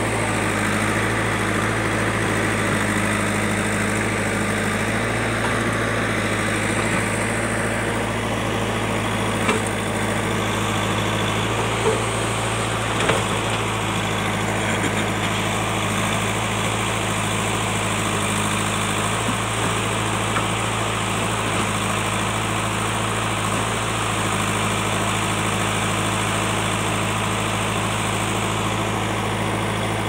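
JCB backhoe loader's diesel engine running steadily while its backhoe arm works, with a few short knocks about ten and thirteen seconds in.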